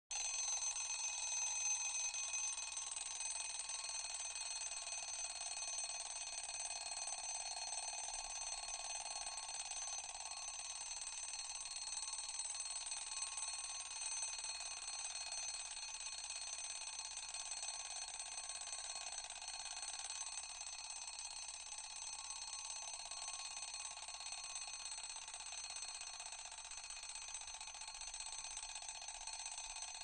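Mechanical alarm clock ringing without a break, a steady metallic bell ring that grows slowly a little quieter.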